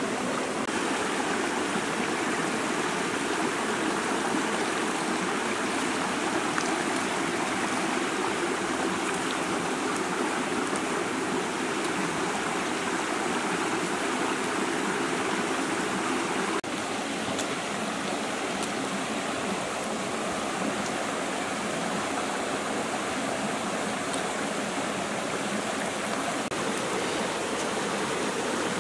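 Shallow rocky stream flowing, a steady rush of water over stones, dropping slightly in level a little over halfway through.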